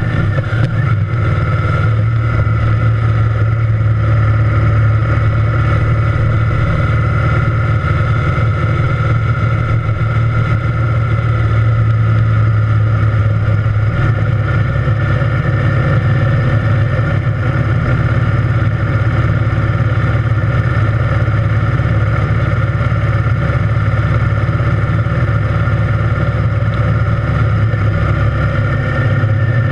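Triumph Thunderbird Storm's 1700 cc parallel-twin engine running at a steady cruise, a constant low drone that holds an even speed without revving up or down.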